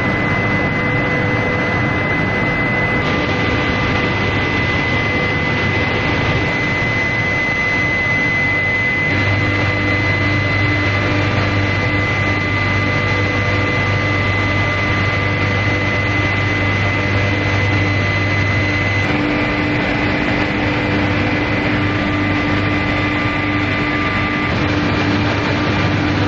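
Industrial machinery running steadily: a loud, even noise with several steady hum and whine tones over it. A low hum grows stronger from about nine seconds in until about nineteen seconds, when the higher whine tones shift.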